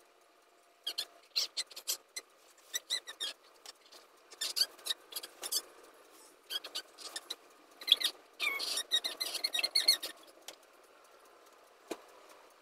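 Bunches of rustling with small clicks and squeaks from someone moving about on a bed, busiest and loudest about eight to ten seconds in, with one sharp knock near the end.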